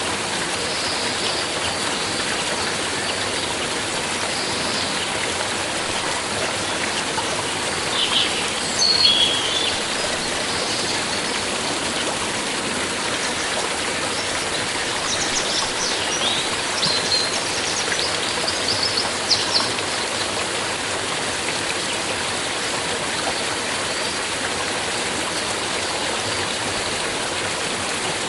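Steady rushing and babbling of a flowing stream, with a few short high chirps about a third of the way in and again past the middle.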